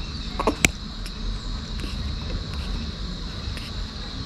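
A steady high insect trill in the background over a low rumble, with a single sharp click about half a second in.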